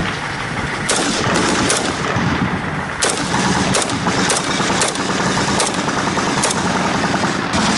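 Single gunshots at irregular intervals, about ten in all, over the steady noise of a moving armoured vehicle's engine and road rumble.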